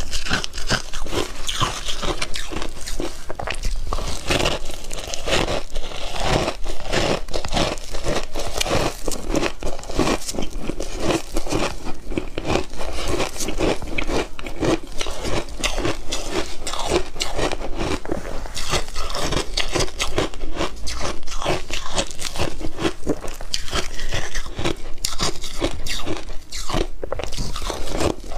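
Crushed, crumbly ice being chewed close to a clip-on microphone: dense, rapid crunching and crackling as the ice breaks between the teeth, continuing without a break.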